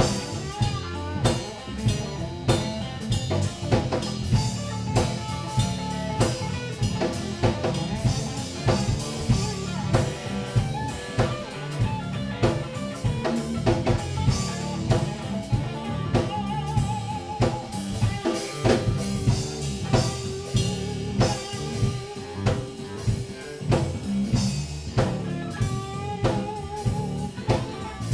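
Live funk rock band playing: electric guitars, one a Telecaster-style guitar, over a busy drum kit beat, with sustained, wavering guitar notes in the middle.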